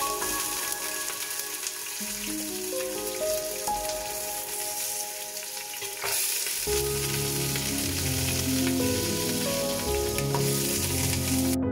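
Bones sizzling and crackling in hot oil in a stainless steel stockpot as they are browned for broth, with tongs setting more pieces in. Background music with sustained melodic notes plays over it, and a bass line comes in about two-thirds of the way through.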